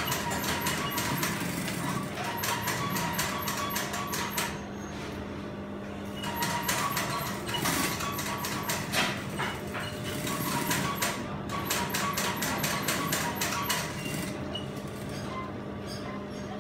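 Brother industrial sewing machine stitching in three short bursts of rapid, even needle ticks, pausing briefly between them as the fabric is guided and turned, with a low motor hum underneath.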